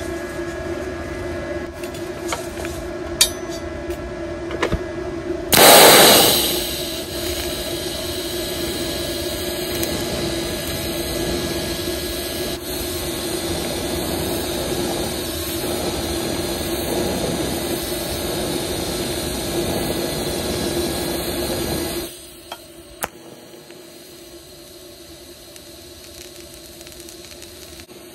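TIG welding arc from a Tooliom TL-200T high-frequency TIG welder. It starts with a steady hum, then a loud crackling burst as the arc strikes about six seconds in. A steady hiss and buzz follows for some fifteen seconds, and the level drops off sharply near the end.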